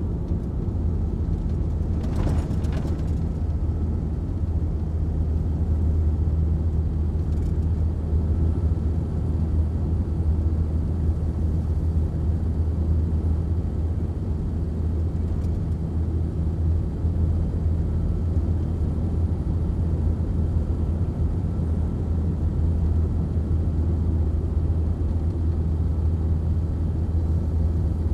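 Diesel engine of a MAN LE280B 4x4 truck running steadily under way, a constant low drone. A short clatter cuts through it about two seconds in.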